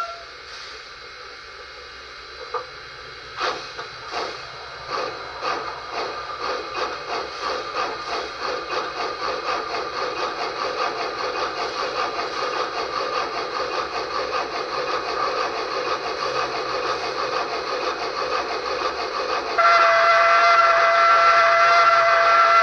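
Tsunami2 steam sound decoder playing through a small speaker in a model rotary snowplow: after a low steady hiss, exhaust chuffs begin about three seconds in and quicken into a rapid, even chuff, set up as a geared three-cylinder locomotive. Near the end a rotary-style steam whistle sounds one long, loud blast of several tones at once.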